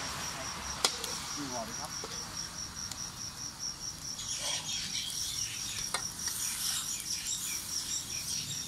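An insect, likely a cricket, chirping steadily in a fast, even pulse of about five chirps a second, with a couple of sharp clicks over it.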